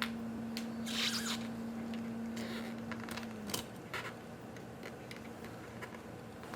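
Small clicks and brief scraping noises of tools handling the parts of a quartz watch being taken apart, with the loudest scrape about a second in. A low steady hum runs underneath and stops about halfway through.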